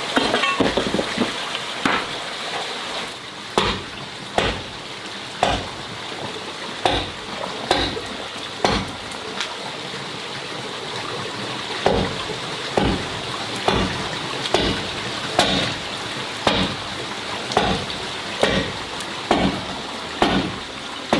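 A steady hiss with sharp knocks repeating about once a second.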